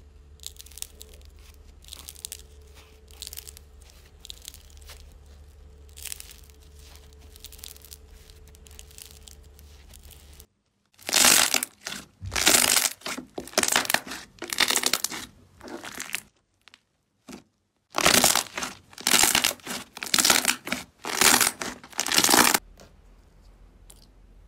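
Slime being worked by hand, faint squishing and crinkling strokes at first. After a cut about ten seconds in come two runs of loud, quick crunching bursts, a few seconds each, with a short pause between them.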